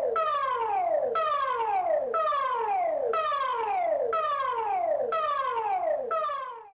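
Electronic emergency alert tone: a falling siren-like sweep repeated about once a second, about eight times, that cuts off abruptly near the end.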